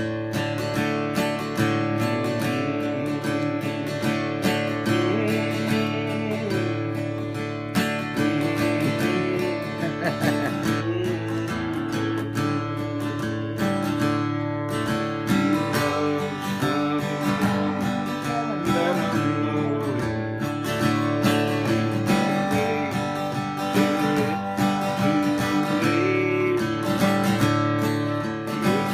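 Acoustic guitar playing an instrumental tune, strummed and picked, without singing.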